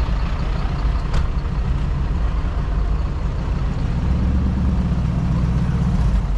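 A car engine running at low speed, a steady low rumble that grows a little stronger past the halfway point.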